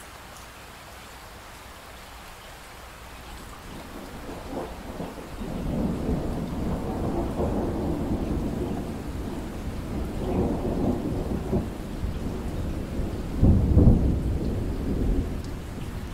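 Steady rain hiss with thunder: a low rumble builds about four seconds in, rolls on in swells, and peaks in a loud clap near the end.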